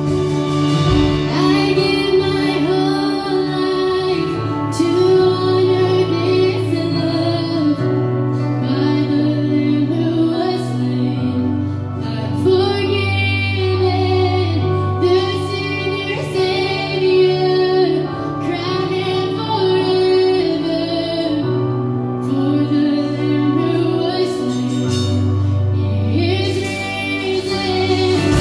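Live worship band playing a slow worship song: a female lead singer sings over electric guitars and sustained bass notes that change every few seconds.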